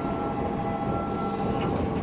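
Kumamoto Electric Railway 200 series electric train running into the station: a steady rumble of wheels and motors with thin whining tones over it, the highest of which stops about one and a half seconds in.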